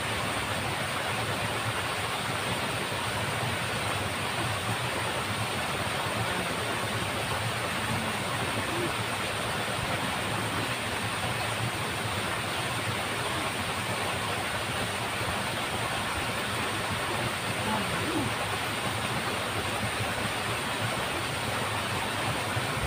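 Steady rush of water flowing in a small ditch, an even noise with no breaks.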